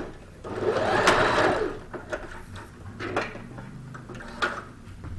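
Janome Sewist electric sewing machine running a short burst of stitching about half a second in, speeding up and then slowing to a stop after just over a second. A couple of sharp clicks follow as the fabric is handled at the machine.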